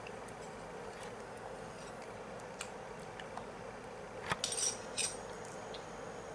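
A metal spoon clinking against dishware, a few quick clinks close together about four to five seconds in, with scattered faint clicks around them.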